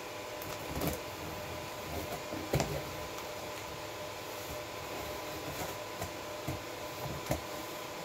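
A box cutter slitting the packing tape along a cardboard box's seam, then the box being pressed and handled: a handful of short scrapes and knocks, the loudest about two and a half seconds in. Underneath runs the steady hum of computer fans with a faint constant tone.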